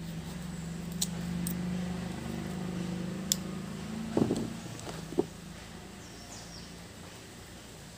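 A passing motor vehicle's engine hum swells and then fades over the first five seconds. A knife cutting cassava pieces on a plastic plate makes a few sharp taps, the last about five seconds in.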